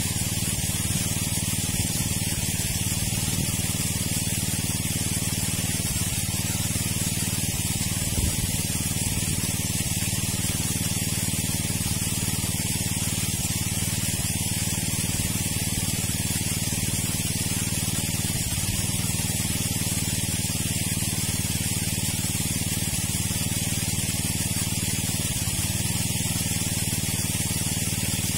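Engine-driven water pump running steadily at constant speed, with a continuous hiss over its hum.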